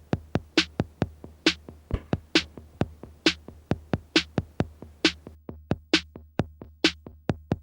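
Electronic music intro: a drum-machine beat of sharp, evenly spaced hits, about four a second, over a low steady hum.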